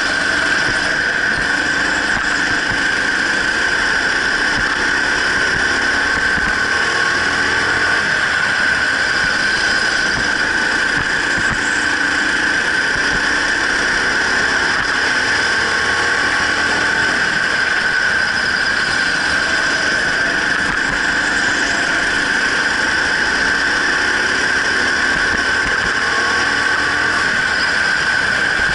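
Go-kart running laps at race pace: a steady high whine over continuous engine noise, with the lower engine note rising and falling a little every few seconds as the kart speeds up and slows for corners.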